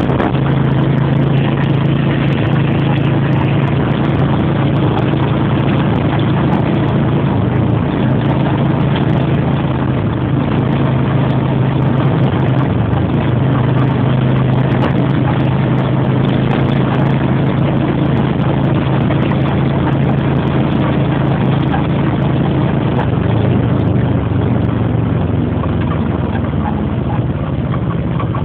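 Motorcycle engine running steadily while riding along, a steady low drone over a continuous rushing noise.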